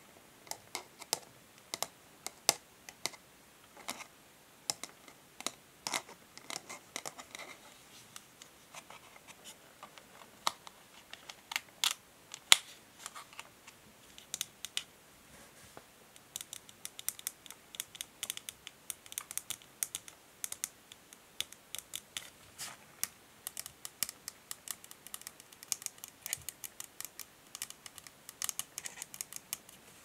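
Long fingernails tapping and scratching on a cardboard and plastic hair brush box, an irregular run of sharp clicks and taps. In the second half scissors snip at the plastic packaging, and the clicks come thicker.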